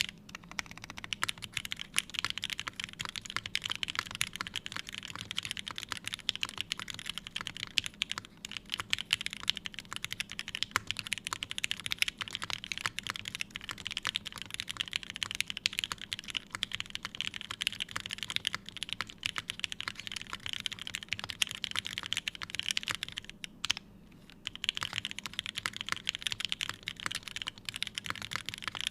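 Fast continuous typing on an aluminium-plate Emery65 mechanical keyboard with lubed and filmed Gateron Ink switches and GMK keycaps: a dense stream of key clacks, broken by a pause of about a second near the end.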